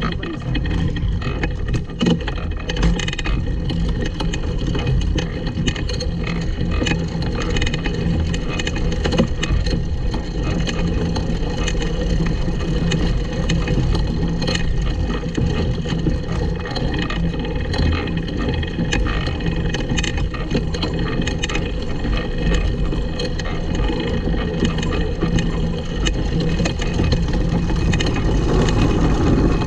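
Small go-kart rolling over bumpy grass, heard from a camera mounted on the kart. Wheels and frame give a steady, dense rumble and rattle, with scattered clicks and knocks.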